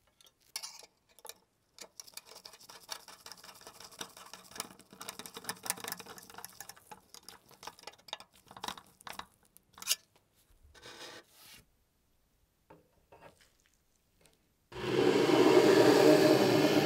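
A flat-blade screwdriver drives a brass wood screw through a metal clip into a wooden base, making soft scraping, creaking and small clicks as the screw turns and bites into the wood. Near the end a much louder rushing noise starts suddenly and lasts about two seconds.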